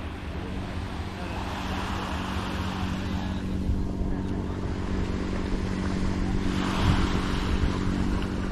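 A steady engine drone, as of a motorboat running out on the bay, with small waves washing on the sand and swelling twice.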